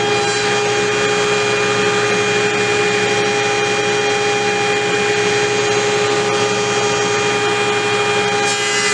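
Table saw running steadily, its motor and spinning blade giving a constant whine with several steady tones over a hiss.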